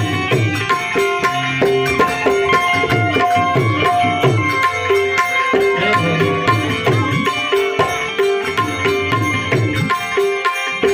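Instrumental interlude of a Gujarati devotional bhajan: tabla playing a brisk steady rhythm with sliding bass strokes, under a harmonium holding sustained melody notes.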